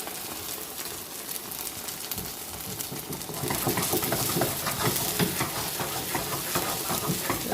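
Korean pancakes sizzling as they fry in a pan. From about halfway through, a utensil clicks and scrapes repeatedly against the pan.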